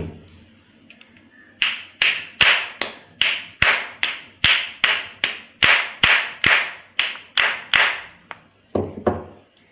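Pestle pounding in a mortar, crushing erukkam (calotropis) flowers: a steady run of sharp strikes at about two and a half a second, then a short pause and two more strikes near the end.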